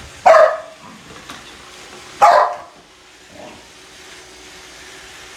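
Boxer dog barking: two loud single barks about two seconds apart, then a fainter one.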